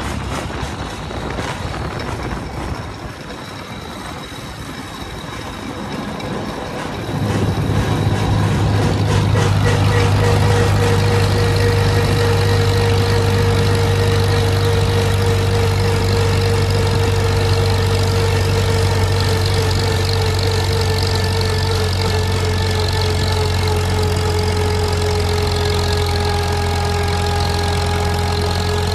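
Farmall M tractor's four-cylinder engine being started: after a quieter, rattly stretch it catches about seven seconds in and then runs steadily, with a thin whine that slowly drops in pitch.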